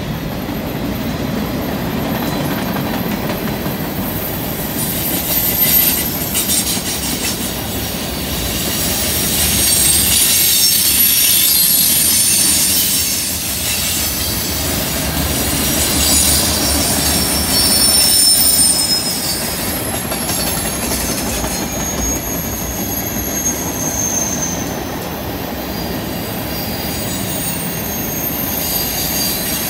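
Freight cars rolling past on a curve: a steady rumble of steel wheels on rail with high-pitched wheel flange squeal coming and going over it, the squeal caused by the wheels grinding against the rail through the curve.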